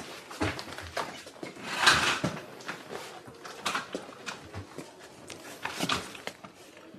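Scattered rustling and light knocks of papers and an office chair being handled, with a few footsteps. The loudest rustle comes about two seconds in.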